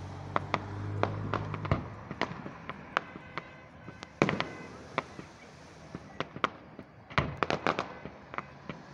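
Aerial fireworks shells bursting: a running series of sharp pops and bangs, with a louder bang about four seconds in and a quick cluster of crackling pops near the end.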